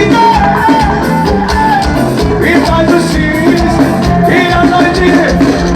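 Live forró band playing with a steady, pulsing beat and a gliding melodic lead line over it.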